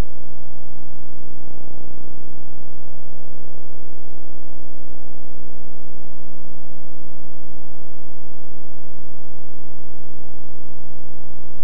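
Steady electrical hum with many evenly spaced overtones, loud and unchanging throughout, with no game sound coming through.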